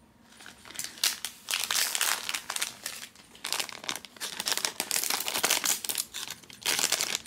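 A foil blind bag crinkling loudly as it is handled and torn open, in uneven bursts of crackling that start about half a second in.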